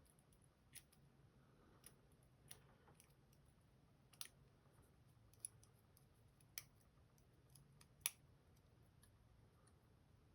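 Faint, irregular small metal clicks and taps as a tool works at a stuck fingerpin slider in the plug of an Assa Guideline lock, trying to free it; the sharpest click comes about eight seconds in.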